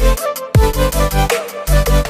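Background electronic music with deep bass notes, some falling in pitch, over a steady beat.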